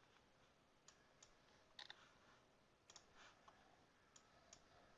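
Faint, scattered clicks of a computer mouse and keyboard as labels are selected and retyped, over a low room hiss.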